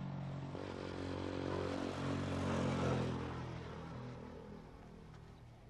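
A motor vehicle's engine passing by: a steady engine note that swells to its loudest about three seconds in, then fades away.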